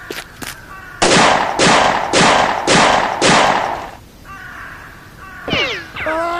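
Five pistol shots about half a second apart, each a sharp bang that dies away quickly. Near the end comes a short pitched call that slides down and then holds.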